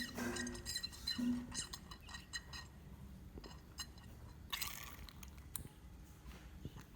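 Scattered light clicks, taps and clinks of small handling noises, with two short low tones in the first second and a brief hiss about four and a half seconds in.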